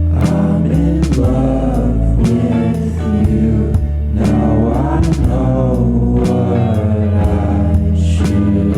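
Background music: a song with a singing voice over a steady beat, bass and guitar.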